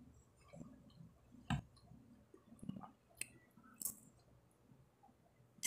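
A person eating bread by hand: quiet chewing with a few sharp mouth clicks and smacks, about four louder ones spread through.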